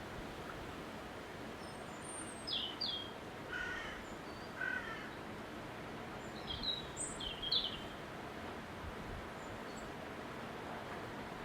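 Steady rushing wind noise with short bird chirps and calls breaking in several times, between about two and eight seconds in.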